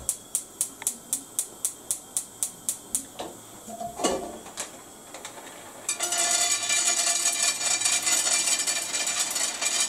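Gas hob igniter clicking about three times a second for the first three seconds. A pan clatters about four seconds in. From about six seconds there is a steady rattling hiss from pine nuts toasting in a dry frying pan.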